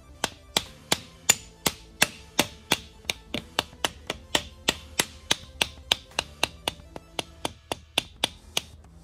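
A mallet tapping the steel cross shaft into a Dana 44 differential carrier with a Lock Right locker inside, about three blows a second in a steady run of some two dozen strikes. Background music plays underneath.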